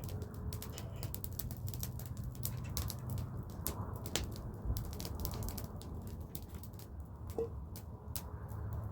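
Irregular sharp crackles and clicks, several a second, over a low steady rumble.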